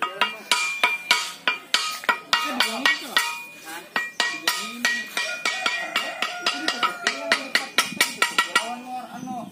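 Rapid hammer blows on a metal boat propeller blade laid on a wooden block, about three strikes a second, each ringing briefly. The blade is being beaten into shape so that it takes the water smoothly.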